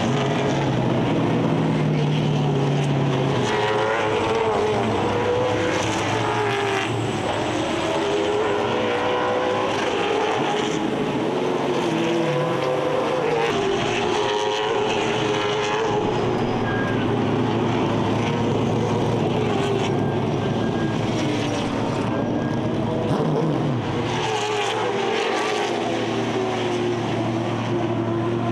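Late model stock car engines running practice laps, the engine pitch rising and falling over and over as the cars accelerate and lift, over a steady lower drone.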